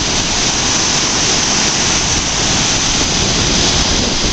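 River water pouring over a dam's spillway gate and crashing into the churning tailwater below: a loud, steady rush.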